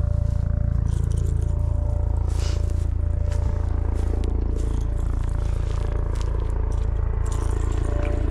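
Steady low wind rumble on the microphone, with scattered scrapes and rustles of handling and movement on the bank.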